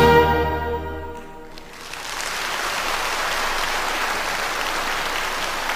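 A trombone and symphony orchestra end on a held final chord that dies away within about a second. Audience applause then starts about two seconds in and continues steadily.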